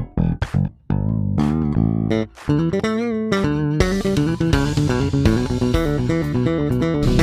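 Background music led by plucked bass and guitar, with short choppy notes at first and fuller, denser playing from about four seconds in.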